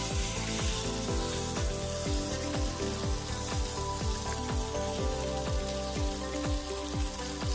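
Background music with a steady beat of falling bass notes, over a steady sizzle of food frying on a Blackstone flat-top griddle.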